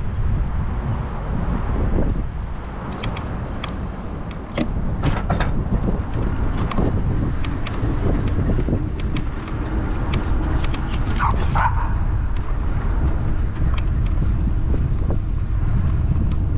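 Wind buffeting a bicycle-mounted GoPro's microphone over the rumble of the tyres. A run of sharp clicks and knocks comes as the wheels roll across a timber boardwalk.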